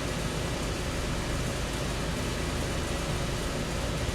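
Steady low hum and hiss of background noise, unchanging throughout, with no distinct knocks or clicks.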